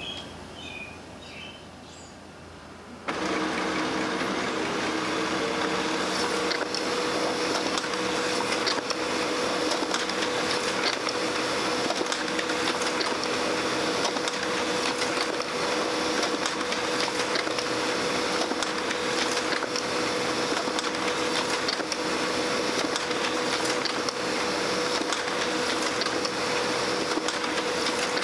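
Brother laser printer starting up about three seconds in and then printing continuously: a steady mechanical whirr with a hum that rises slightly in pitch over its first few seconds and then holds level.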